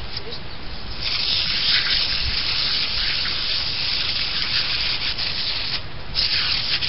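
Garden hose spray nozzle on its jet setting blasting water onto a pleated pool filter cartridge to wash out the dirt: a loud hiss that starts about a second in, breaks off briefly near the end and starts again.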